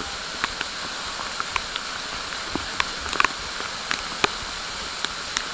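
Steady hiss of falling water, with scattered irregular sharp ticks like drops striking close by.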